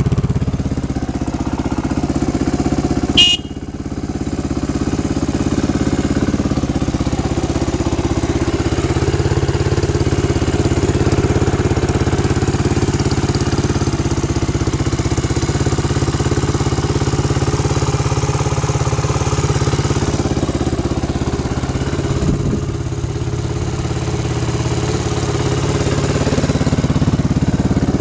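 Suzuki DR350's single-cylinder four-stroke engine idling steadily through an aftermarket GPR exhaust. A single sharp click comes about three seconds in.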